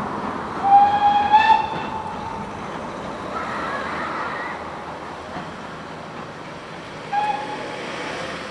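Steam locomotive whistle sounding: one note of about a second, rising slightly at the end, then a short second toot near the end, over the steady noise of a train running.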